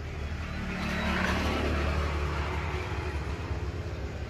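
A motor vehicle passing: a steady low engine rumble, with a swell of noise that rises about half a second in and fades away by about three seconds.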